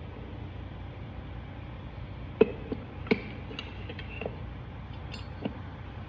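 About half a dozen light clicks and knocks of TH350 transmission parts being handled while the front pump and thrust washer are fitted, the two loudest about halfway through, over a steady low background noise.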